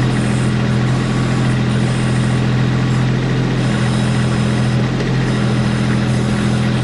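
Kubota B2650 compact tractor's diesel engine running steadily at constant speed, with a low, even hum.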